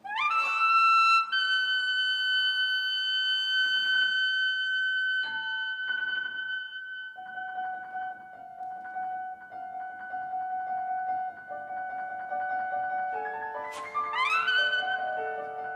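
Saxophone and piano playing contemporary classical music. The saxophone sweeps up into a long held high note over a few sharp piano chords, moves to a lower held line, then sweeps upward again near the end.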